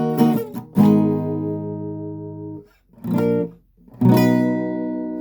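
Strummed guitar: a few quick chord strokes, then a chord left ringing until it is damped, a short chord, and a final chord about four seconds in that rings out slowly.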